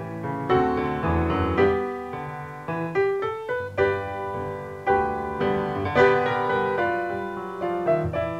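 Background piano music, a gentle melody of struck notes that ring and fade over a low bass line.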